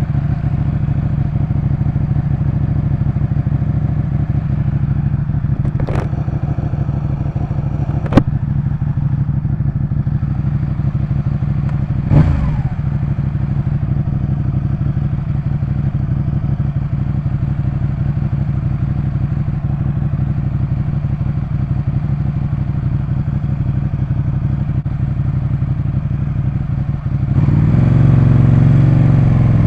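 Ducati 899 Panigale's V-twin engine idling steadily, with two sharp clicks and then a brief throttle blip that rises and falls. Near the end the engine gets louder and its pitch climbs as it revs up.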